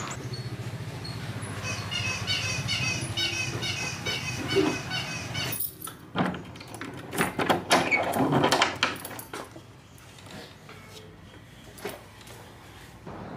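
A padlock on a wooden door being unlocked with a key on a jangling key ring: a cluster of metal clinks and rattles about halfway through, then a few single clicks. Before that comes a quick, evenly repeated run of high chirps.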